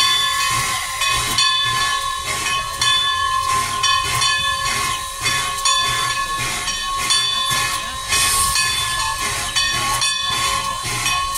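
Steam locomotive standing with steam up, hissing steadily with a high ringing tone under it and a regular beat about every two-thirds of a second.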